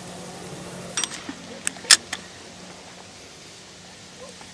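Feeder rod and spinning reel being handled, giving a few short sharp clicks, about a second in and twice just under two seconds in, the last the loudest.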